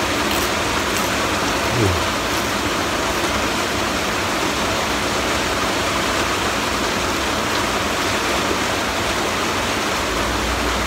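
Steady hiss of heavy rain. A short, falling vocal sound comes about two seconds in.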